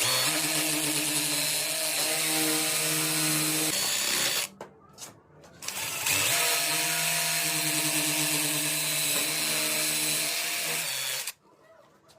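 An electric power tool, such as a drill, runs at a steady speed in two stretches of about four and five seconds, with a short stop between them. Its motor hum is steady and sits over a hiss.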